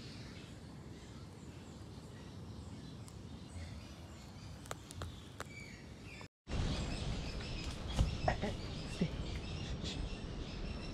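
Birds chirping in tropical woodland, a scatter of short high calls over a steady outdoor background, with a few sharp crunches and knocks. The sound drops out briefly just past halfway and comes back louder, with the chirps more frequent.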